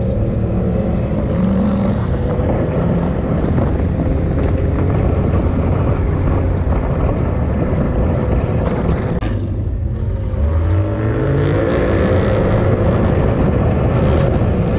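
Off-road side-by-side's engine running under load while driving over sand dunes. About two thirds of the way through it eases off briefly, then revs back up.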